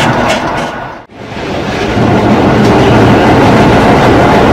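Running noise inside the motor car of a Polish EN57 electric multiple unit at about 75 km/h: a steady rumble of traction motors and wheels on the rails. About a second in, the sound dips briefly to almost nothing, a fade from the modernised EN57AL's motor-car recording over to the EN57's.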